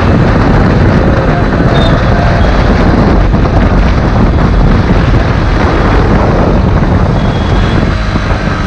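Riding a Yamaha R15 V3 motorcycle at about 60 km/h, heard from the rider's camera: a steady rush of wind over the microphone with the single-cylinder engine running underneath. The rush eases a little near the end as the bike slows.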